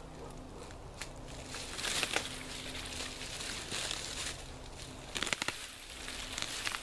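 Dry dead branches and brush rustling and cracking as a dead tree is pulled and shaken by hand, with a cluster of sharp snaps about five seconds in. A faint steady low hum runs underneath.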